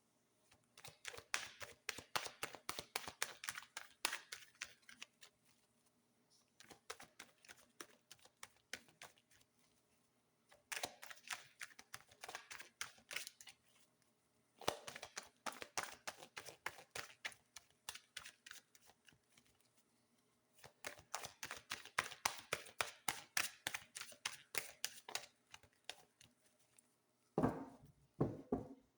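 A deck of tarot cards being shuffled by hand: five bouts of quick flicking clicks, each lasting a few seconds, with short pauses between.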